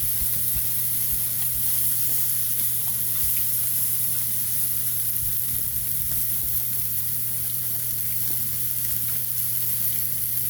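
Meat sizzling on a hot grill pan: a steady, even hiss with scattered small pops and a steady low hum underneath.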